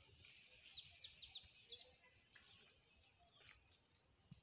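Small birds chirping: rapid, high, short down-slurred notes in quick runs, busiest in the first two seconds, over a faint steady high insect buzz.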